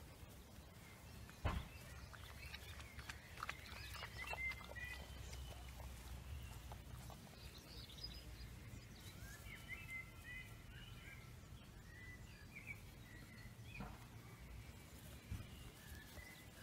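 Faint, short high-pitched squeaks and chirps from small animals, coming in scattered clusters, with a couple of soft knocks.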